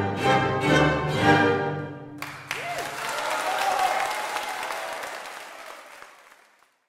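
An orchestra with bowed strings plays the closing chords of a classical piece, ending about two seconds in. Audience applause breaks out at once and fades out near the end.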